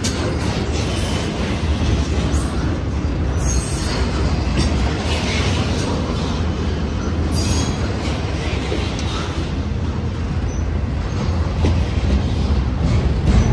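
Double-stack intermodal freight train's well cars rolling past: a steady, loud rumble of steel wheels on rail with occasional sharp knocks.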